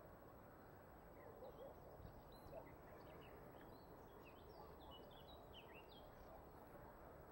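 Near silence with faint birdsong: a run of short, high chirps from about a second in until shortly before the end, over a quiet background hiss.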